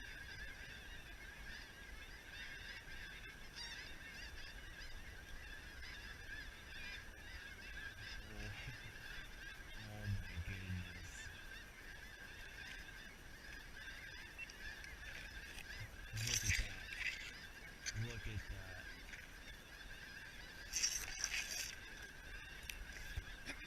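Dense, continuous chorus of many snow geese calling as large flocks circle overhead, with a couple of brief louder, closer sounds in the second half.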